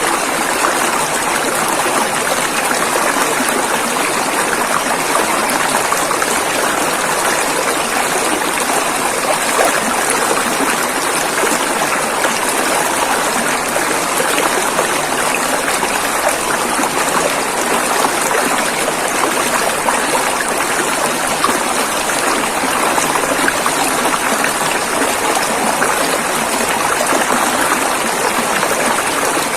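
River water flowing over rocks: a steady, even rush of water.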